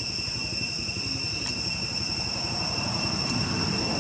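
Steady, high-pitched insect chorus, crickets or cicadas buzzing on three unbroken tones, over a low rumble that swells slightly in the second half.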